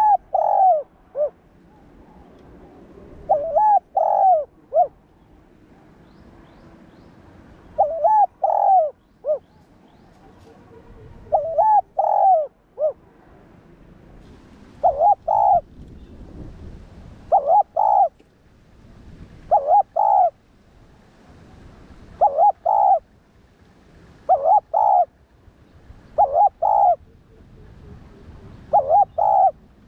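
Spotted dove cooing over and over, each phrase two or three coos. The phrases come every three to four seconds at first, then about every two and a half seconds.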